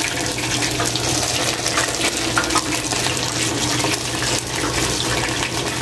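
Fish deep-frying in the wire basket of an electric deep fryer: the hot oil bubbling and crackling steadily around the fish, with a low steady hum underneath.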